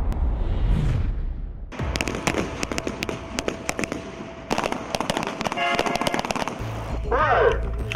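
A line of shooters firing pistols: rapid, irregular, overlapping shots that start about two seconds in, after a low rumbling whoosh. Music with a heavy bass comes in near the end.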